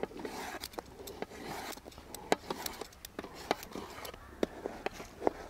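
Ripe mango being peeled with a metal swivel peeler: a run of short, irregular scraping clicks as the blade strips the skin.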